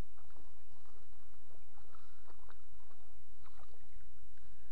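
A hooked largemouth bass being reeled in on a baitcasting rod, with faint splashing at the surface over a steady low rumble.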